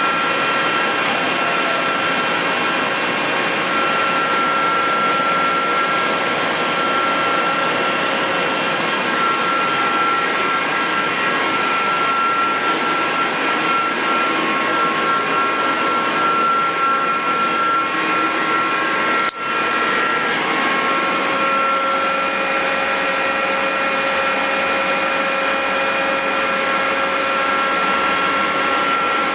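Mori Seiki NL1500 CNC lathe running under power: a steady mechanical hum mixed with several held whining tones, with a brief sharp break about two-thirds of the way through.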